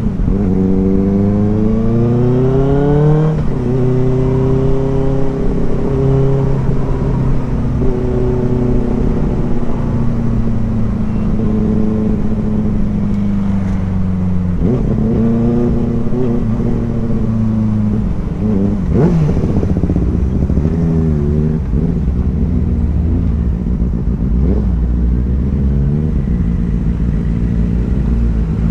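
Inline-four motorcycle engine revving under acceleration, its pitch climbing steeply then dropping abruptly about three seconds in. It climbs again near the middle, and the revs rise and fall several times in the second half.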